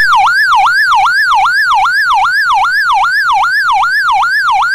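DNI electronic siren sound sample: a fast yelp whose tone sweeps up and down about three times a second, evenly and without a break.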